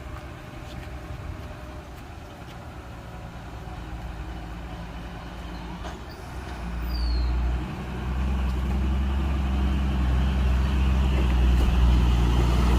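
Heavy truck engine running on the climb, growing louder from about six and a half seconds in as it comes closer.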